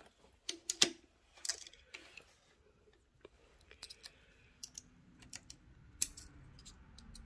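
Scattered light metallic clicks and ticks as a Holeshot Arms Nitro rimfire benchrest action is handled: the bolt worked and the fired case picked out of the chamber with a pocket knife.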